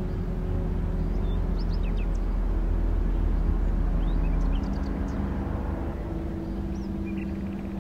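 Steady low rumble with a few held low tones, and a handful of short, high bird chirps. The rumble eases a little about halfway through.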